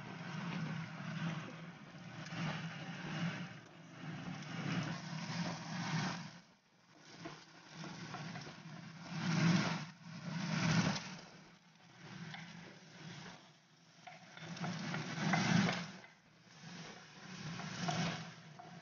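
Eggs frying in hot oil in a pan, sizzling in swells that rise and fade every few seconds, over a steady low hum; near the end, chopped garlic and green onion sizzle in the oil.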